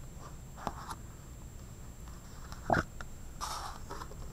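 Large paper picture book being shut and handled on a desk: a few light paper taps, one sharp thump nearly three seconds in as the book closes, then a brief papery rustle.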